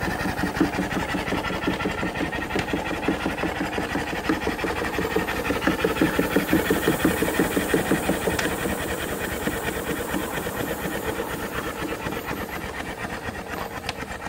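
Tiny Power two-cylinder compound vertical steam engine running smoothly on boiler steam. Its exhaust puffs in a fast, even beat of hissing chuffs.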